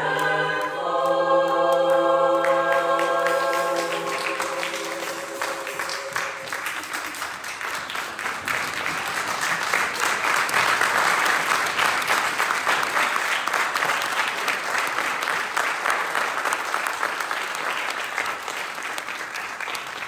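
A choir holds a closing chord that fades away over the first few seconds as the congregation breaks into applause. The applause swells to its loudest about halfway through and carries on.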